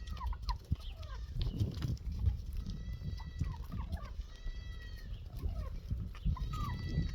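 Farmyard animals calling: drawn-out pitched calls repeating every second or two, mixed with short chirps, over a low rumble.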